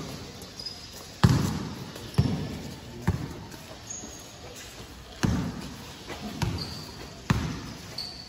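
Basketball bouncing on a gym court: about six irregularly spaced bounces, each echoing around the hall, with a few short, faint high squeaks between them.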